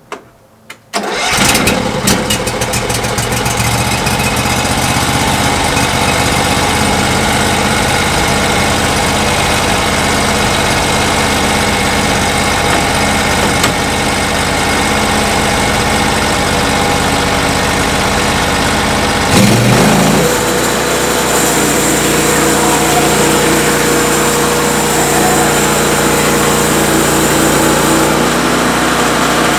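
A sawmill's engine being started: it catches about a second in and runs steadily. About two-thirds of the way through, its note sweeps up and it settles at a higher speed.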